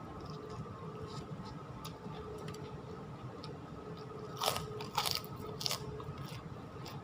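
Close-up chewing of a mouthful of ketoprak, with small wet clicks throughout and three loud crunches about four and a half to six seconds in.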